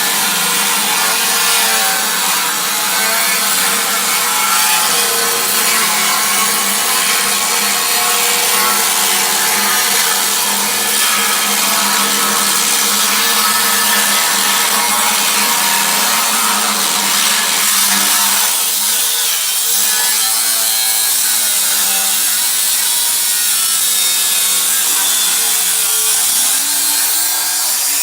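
Power tool cutting into the steel shell of a Ford ST factory muffler. It runs loud and continuous, its whine wavering as the blade bites, and it cuts off suddenly at the end.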